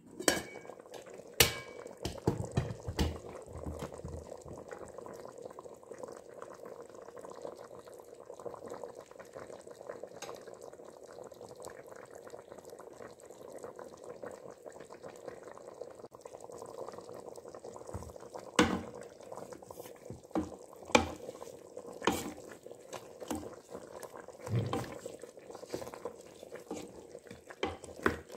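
Lamb stew in tomato sauce simmering in an open pot, bubbling steadily. Sharp clicks and clatters come from the pot lid being lifted off about a second in, and a few more knocks follow later.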